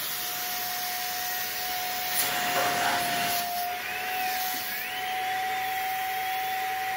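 Household vacuum cleaner running steadily with a high motor whine, its hose drawing the air out through the valve of a jumbo plastic vacuum storage bag packed with clothes. The plastic crinkles louder for a moment about two seconds in as the bag shrinks down.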